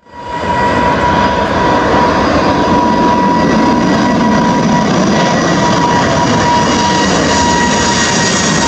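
Boeing 747-8F's four GEnx jet engines running, a loud steady roar with a high whine held on one pitch, fading in over the first half second.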